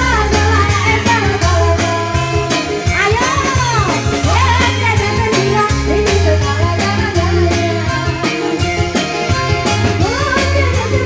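Live dangdut koplo band playing loudly: a woman sings a sliding, ornamented melody over a steady hand-drum beat, keyboard and a strong bass line.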